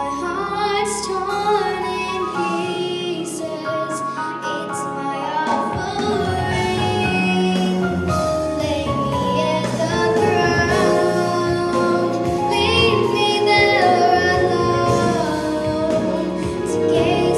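A young girl singing a song into a microphone over an instrumental accompaniment.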